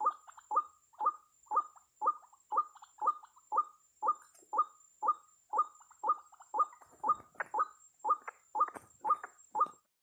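White-breasted waterhen (ruak-ruak) call: short notes repeated steadily about twice a second. A faint, steady high thin tone runs beneath.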